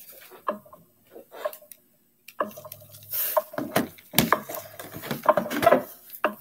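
Clattering and knocking of objects handled right next to the microphone, a few scattered clicks at first, then a dense, louder run of knocks from about two and a half seconds in.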